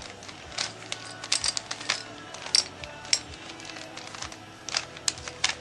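Rubik's cube being solved at speed: its plastic layers clicking and clacking as they are turned, in irregular runs of clicks, several a second at times.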